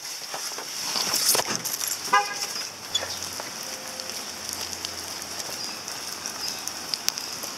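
A couple of knocks, then a short car horn toot about two seconds in. Then footsteps on wet pavement with a steady hiss of rain.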